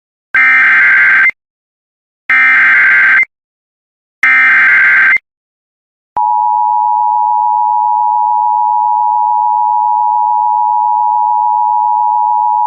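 Emergency Alert System SAME header: three one-second bursts of shrill warbling data tones, about a second apart, encoding a severe thunderstorm warning. About six seconds in, the EAS two-tone attention signal starts and holds steady.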